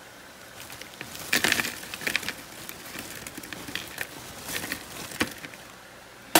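Crinkle-cut fries being tipped onto a plate: a run of light clicks and rustles as they land and pile up, busiest about a second and a half in and thinning out toward the end.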